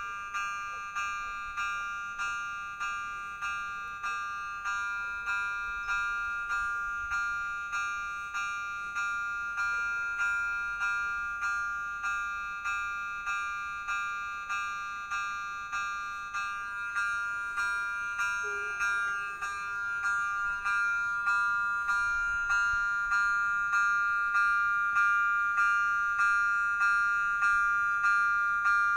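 Railway level crossing's electronic warning bell ringing, one bright chime-like stroke about once a second, each stroke fading before the next. It grows somewhat louder in the second half. The bell signals that a train is approaching and pedestrians must not cross.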